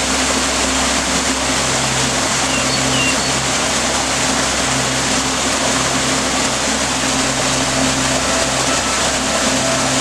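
Small waterfall pouring steadily into a pool, a continuous even rush of falling and splashing water.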